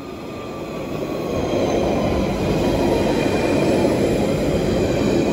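London Underground Central Line 1992 Stock train running along the platform. Its noise grows louder over the first couple of seconds and then holds steady, with faint high whining tones that slowly fall in pitch.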